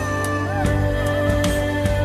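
Background music: soft, tender instrumental music with held notes over a steady low bass and a light, regular beat.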